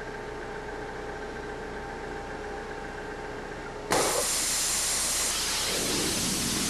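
A steady machine hum with a few fixed tones, then about four seconds in a sudden, loud, even hiss as an abrasive waterjet fires its ultra-high-pressure stream and cuts into metal.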